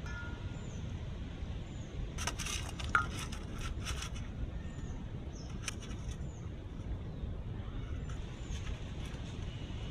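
Light clicks and clinks, several in a quick cluster a couple of seconds in, as ginger pickle is scooped by hand from a steel bowl into a glass jar. Under them runs a steady low rumble, and a bird chirps repeatedly in the background.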